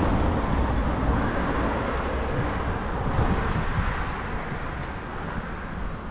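Street traffic: a passing motor vehicle's low rumble and road noise, slowly fading over the few seconds.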